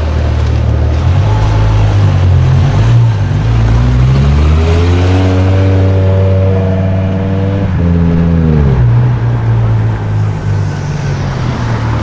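A car engine idling, then revving: the pitch climbs about four seconds in, holds steady for roughly three seconds, and drops back to idle near the eight-second mark.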